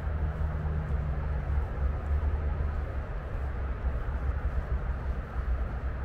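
Distant road traffic: a steady low roar, with a brief low hum during the first second and a half.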